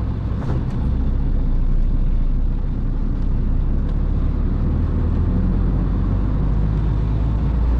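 An HGV's diesel engine runs steadily while driving, a low drone that gets a little louder about a second in.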